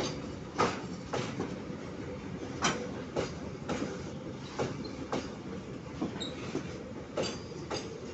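Container freight wagons rolling past: a steady rumble with sharp, irregular clacks about every half second as the wheels strike the rail joints.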